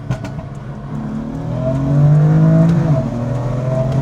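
BMW M4 CS (F82) twin-turbo straight-six accelerating hard in second gear, heard through an open window. The engine note rises in pitch and grows louder for about two seconds, then drops near the end.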